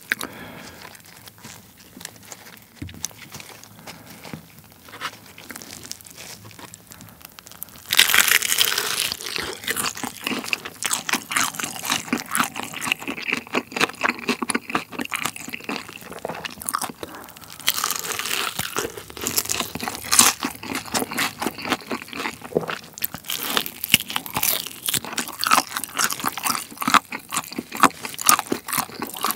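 Crispy Kyochon Honey Combo fried chicken, dipped in tteokbokki sauce, being bitten and chewed close to the microphone. Quiet at first, then loud crunching bites and chewing from about eight seconds in.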